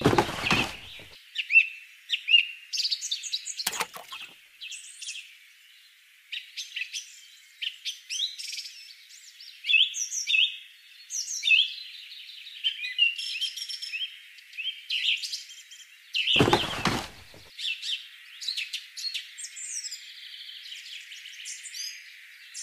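Small birds chirping and calling, many short high chirps in quick succession. A few brief knocks fall near the start, about four seconds in, and around sixteen seconds in.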